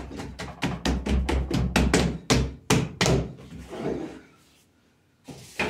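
Hands patting and slapping sweet bread dough flat against a work table, a run of dull thuds about three a second that stops about three seconds in, followed by a single knock near the end.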